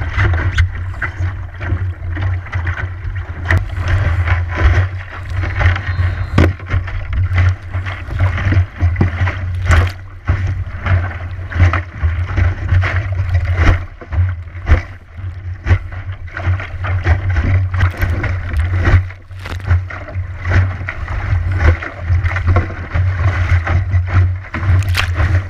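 Wind buffeting the microphone of an action camera mounted in an Optimist sailing dinghy, a steady low rumble, over water rushing and slapping along the hull, with frequent sharp splashes and knocks.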